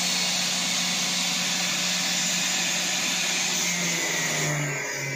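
Angle-grinder motor of an automatic cut-off test machine running a 4.5-inch, 1 mm thin inox cutting disc through a 16 mm stainless steel rod: a steady high hiss over a motor hum. About four and a half seconds in, the hiss thins and the hum drops in pitch as the grinder's power draw rises.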